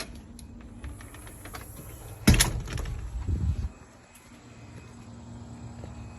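A single sharp thump about two seconds in, followed by about a second of low rumbling, over a faint steady low rumble.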